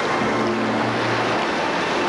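Steady rush of ocean surf, with soft background music of long held notes coming in just after the start.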